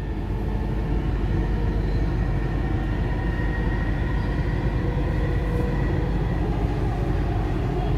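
Dubai Metro train running at speed, heard from inside the car: a steady rumble of the wheels on the rails, with a faint high whine over it.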